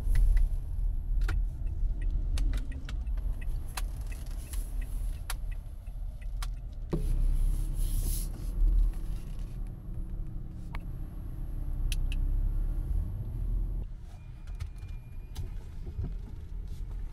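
Inside a car's cabin: a steady low rumble from the car running and creeping forward in a drive-thru queue, with occasional light clicks. The rumble eases a little near the end.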